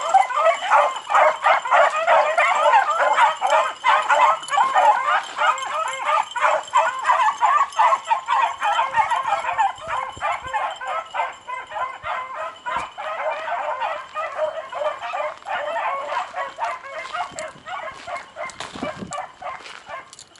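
A pack of beagles baying and yelping together in full cry on a scent line, many overlapping calls, fading gradually as the pack moves away.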